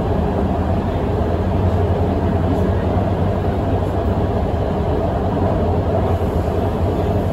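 Guangzhou Metro Line 7 train running, heard from inside the car: a steady rumble of wheels on rail with a low hum underneath.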